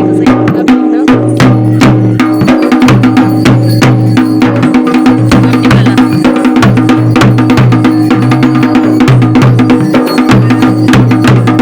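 Loud music with fast, dense drumming over a steady low melodic line, running without a break.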